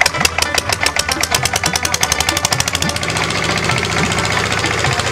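Single-cylinder stationary diesel engine being hand-cranked into life: a fast even knocking that quickens as it fires, settling into a steady run about three seconds in.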